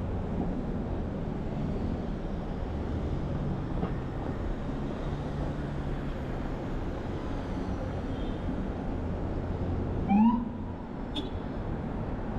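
Steady hum of city street traffic. About ten seconds in comes a short rising whoop, the loudest sound here.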